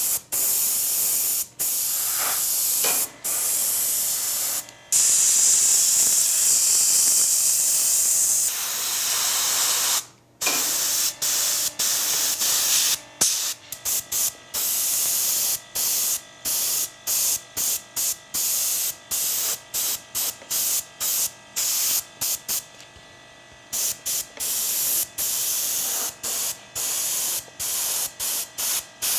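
Paint being sprayed in a fine hissing mist onto a model diorama base. It is long steady passes at first, then from about halfway many short spurts with brief breaks between them.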